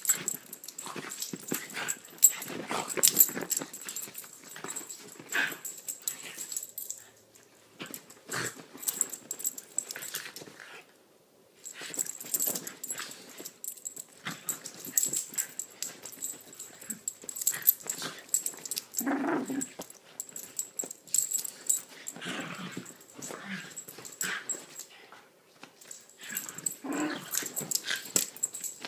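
Two small dogs, a Chiweenie and a Rat Terrier/Chihuahua mix, play-fighting on a bed: play growls and huffing breaths over the rustle and scuffle of bedding, coming in bursts with a few brief lulls.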